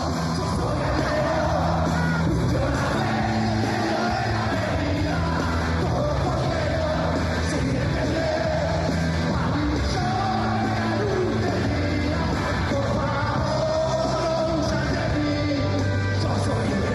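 Live rock band playing, with a singer belting and shouting the vocals over electric bass and drums.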